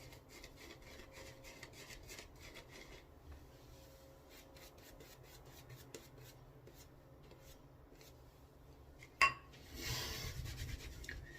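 Hands being dried on a towel: faint rubbing and light scratchy ticks, then a sharp click about nine seconds in, followed by a second or so of louder rustling.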